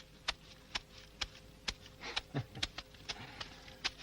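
A steady run of short, sharp knocks, about two a second, over a faint hum.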